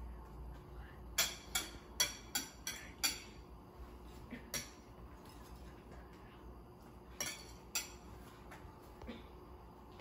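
Metal whisk clinking against a ceramic bowl while beating an egg mixture: a quick run of about six clinks early on, one more a little later, and two more near the end.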